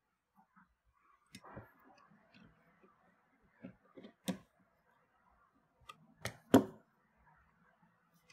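Scattered small clicks and knocks from handling a steel worm-drive hose clamp on clear plastic tubing and tightening it with a screwdriver, with two sharper knocks about six seconds in, the loudest.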